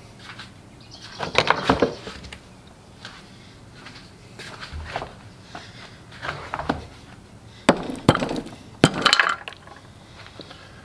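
Several short bursts of metallic clinking and rattling: loose broken pieces inside the Kohler K301 engine's cast-iron crankcase, left by a broken connecting rod, shifting about as the engine is handled.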